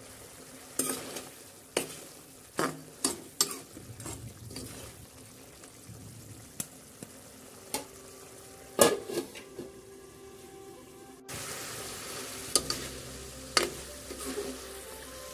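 A metal spoon stirring a chicken curry in a metal kadhai, with about ten sharp clinks and scrapes of the spoon against the pan over a low sizzle of the thick gravy cooking.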